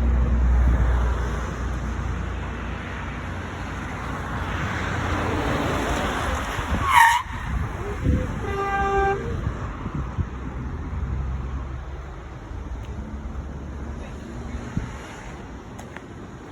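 Road traffic: a vehicle passes close by, its noise swelling and fading over several seconds. Just after it has passed comes a short horn toot, about nine seconds in. Wind buffets the microphone at the start.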